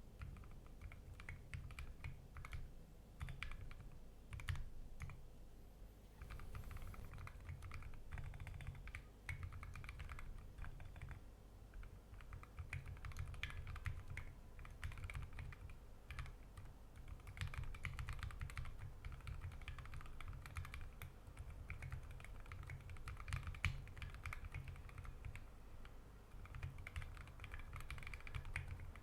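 Fast, continuous typing on a custom 60% mechanical keyboard with lubed Gateron Ink Black v2 linear switches and SA-profile keycaps, keystrokes following each other densely with a few short pauses.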